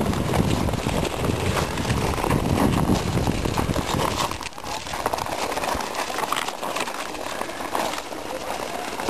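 Ice skates striking and scraping over natural ice in a rhythm of skating strokes. A heavy low rumble underneath drops away about four seconds in.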